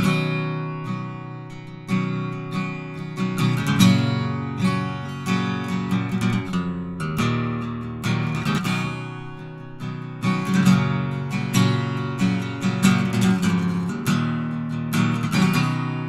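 Electric guitar, a 2016 Gibson Les Paul with P90 pickups, played through a 1991 Marshall JCM900 amp and an Orange 2x12 cabinet: repeated strummed chords and picked notes, each left to ring down. It is recorded with a Warm Audio WA-47jr microphone set to omnidirectional with its 70 Hz filter on.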